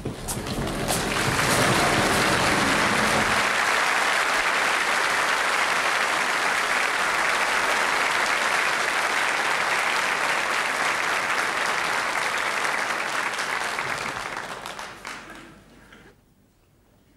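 Audience applause, swelling in over the first second or two, holding steady, then dying away near the end, with a deeper rumble underneath in the first few seconds.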